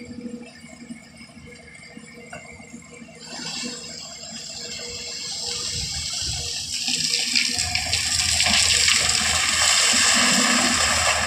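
A rushing noise that starts about three seconds in and grows steadily louder.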